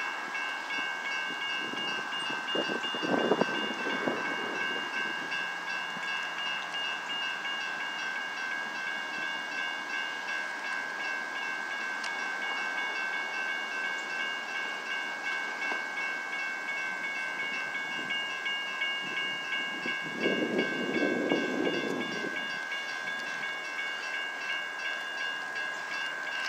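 Railroad grade crossing warning bell ringing steadily and rapidly with the gates down, signalling an approaching train. A brief louder, lower noise comes about three seconds in and a longer one about twenty seconds in.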